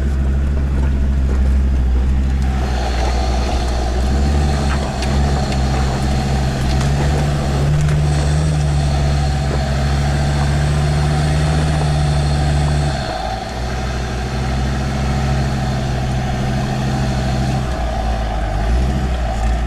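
Land Rover Discovery 2's Td5 five-cylinder turbodiesel engine running steadily under load, climbing a rough track in low gear and heard from inside the cab. The engine note dips briefly about two-thirds of the way through, then carries on.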